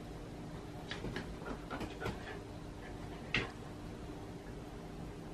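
A domestic cat giving a few short, faint cries about one and a half to two seconds in, among small clicks of wooden chopsticks against a ceramic bowl, with a sharper click about three and a half seconds in. A steady faint hum runs underneath.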